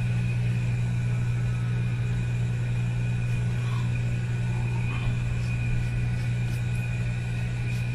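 A steady low machine hum, like a motor running nearby, with a faint steady high whine above it.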